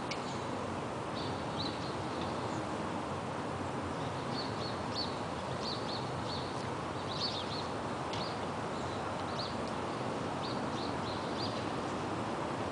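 Short high chirps of small birds, repeated in little clusters, over a steady background rush of city noise.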